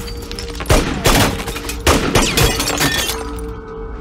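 Several gunshots fired in quick succession in the first two and a half seconds, with wood splintering and debris breaking, over a sustained film music score that carries on alone near the end.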